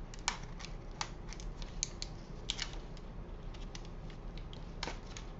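Irregular light clicks and taps of small die-cut cardstock pieces being handled and pressed down on a craft desk.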